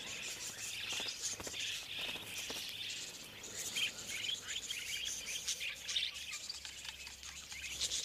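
A flock of wild budgerigars chattering: a dense, unbroken stream of short high chirps.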